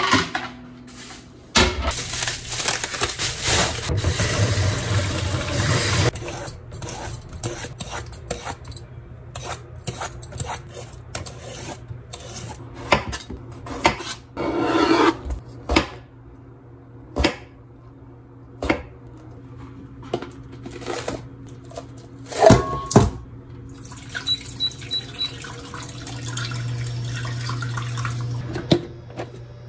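Water running from a tap for a few seconds, then scattered knocks and clinks of dishes and utensils around a sink.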